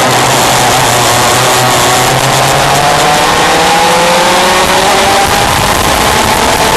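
Yamaha KT100 two-stroke piston-port kart engine at racing revs. Its pitch sags a little, then climbs steadily from about halfway in as the kart accelerates, over a constant rushing hiss.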